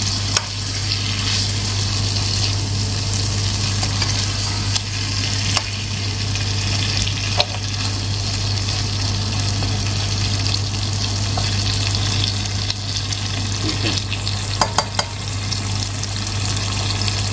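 Goat mutton pieces sizzling and frying in a spiced onion-tomato masala in a nonstick pot while being stirred with a spatula, with a few sharp taps of the spatula against the pot. A steady low hum runs underneath.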